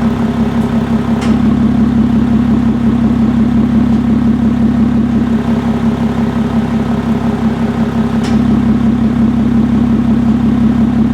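Lotus Evora 400's supercharged 3.5-litre V6 idling steadily through its multimode exhaust with the valves opened by the exhaust button, giving the louder note.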